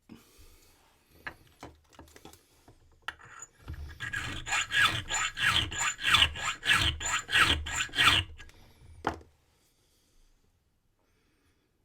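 Small hand file rasping back and forth on a brass key blank, filing down the marks that impressioning leaves, about three strokes a second for several seconds. Light handling clicks come before it, and a single click follows.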